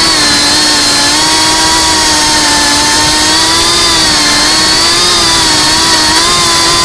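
FPV quadcopter's brushless motors and propellers whining at a steady throttle, the pitch holding nearly level with small wavers as it skims low.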